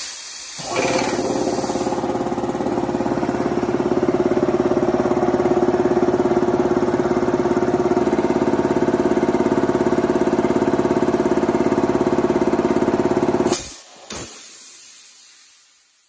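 High-pressure air compressor restarting after a brief hiss of air drained from its purifier tower, then running steadily with a fast, even piston pulse. About 13 seconds in it cuts out abruptly as the pressure switch reaches its cut-off pressure, set to 4500 psi, and a hiss of air venting follows and fades away.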